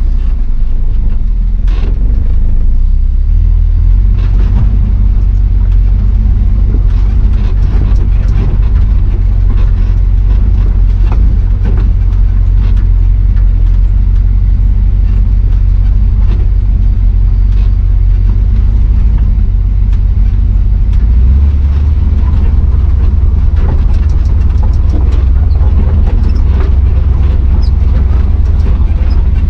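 Chevrolet square-body 4x4's swapped-in 6.0 Vortec V8 running under way, a steady low drone with scattered knocks and rattles. The drone shifts in pitch about twenty seconds in.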